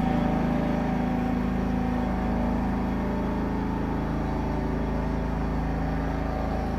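John Deere 170 riding lawn tractor's engine running steadily as the tractor is driven, with a slight shift in pitch about two seconds in.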